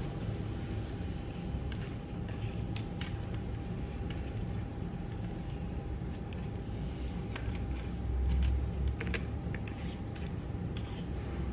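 Faint rustling of a lens-cleaning wipe and light clicks of a plastic glasses frame being handled and rubbed, over a steady low background hum. A brief low bump comes about two thirds of the way in.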